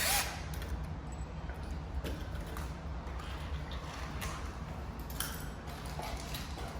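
A few faint, scattered clicks and taps of deadbolt parts being handled, over a steady low hum.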